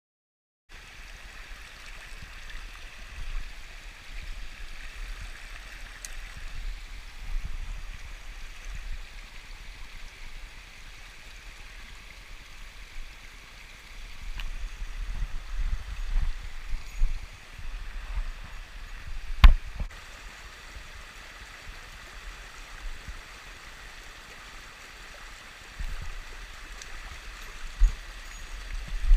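Mountain stream rushing steadily over rocks, with irregular low thuds on the microphone and one sharp click about two-thirds of the way through.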